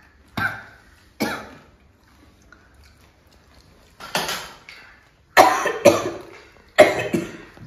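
A person coughing from the burn of an extremely hot chili chip: two short single coughs in the first second or so, then from about four seconds in a coughing fit of several sharp coughs close together.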